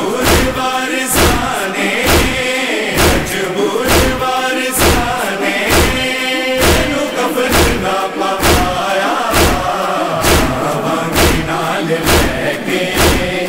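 A group of men reciting a Punjabi noha (Shia lament) in chorus, with chest-beating (matam) thuds keeping a steady beat under the chant.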